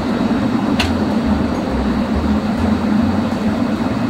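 Steady machinery hum of the International Space Station's cabin ventilation and life-support fans, with a low uneven throb underneath and a single faint click about a second in.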